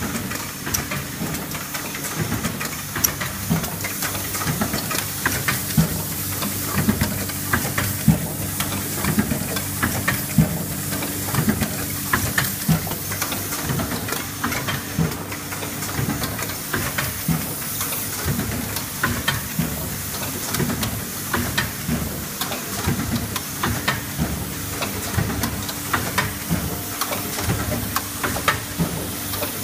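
Automatic coffee-bag valve welding machine running: its vibratory bowl feeders give a steady hum, over a high hiss, with frequent irregular clicks and clacks from the machine's mechanism.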